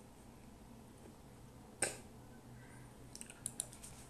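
Light clicks at a computer: one sharp click about two seconds in, then a quick run of small clicks near the end, over a faint steady hum.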